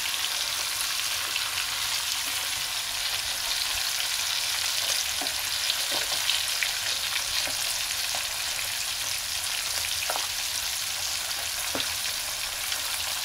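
Sardines frying in hot oil in a frying pan: a steady sizzling hiss, with a few light clicks as metal tongs turn the fish in the pan.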